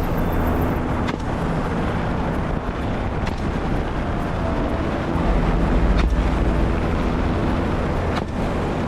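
Helicopter in flight: steady rotor and engine noise with wind buffeting the microphone, swelling somewhat past the middle.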